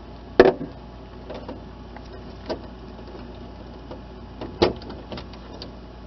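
Plastic thermistor housing snapping loose from a refrigerator compartment wall and being handled. There is a sharp click about half a second in and another about four and a half seconds in, with lighter plastic clicks between.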